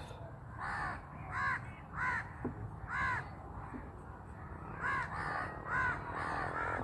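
Crows cawing, a series of short harsh calls, about one every half second to a second, with a pause in the middle.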